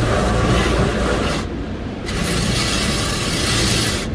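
Automatic tunnel car wash heard from inside the car: a loud, steady hiss of water and wash equipment working over the body, with a low rumble underneath. The hiss cuts out briefly about a second and a half in and again at the end.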